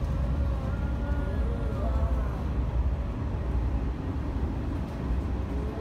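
Running noise inside a 485-series electric multiple unit train (the Kirakira Uetsu) under way: a steady low rumble from the wheels on the rails.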